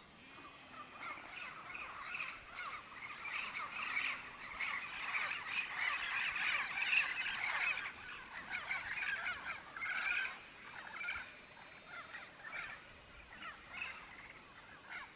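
A flock of birds calling: many short, overlapping squawks and chatter that start about a second in, are loudest in the middle, and thin out toward the end.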